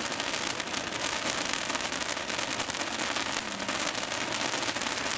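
Fireworks crackling: a dense, steady run of many tiny rapid pops, like rain on a surface.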